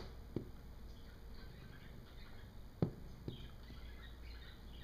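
Tennis balls landing and bouncing on carpet with dull thumps: a light one just after the start, then near three seconds a thump followed half a second later by a smaller bounce.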